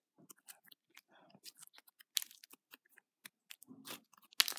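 Thick homemade slime being stretched and squished by hand, making quiet, scattered clicks and small pops as air bubbles in it burst.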